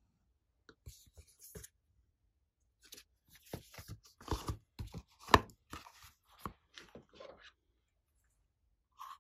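Glossy slime being squeezed and pressed by hand, giving irregular sticky clicks and pops, loudest in the middle of the stretch.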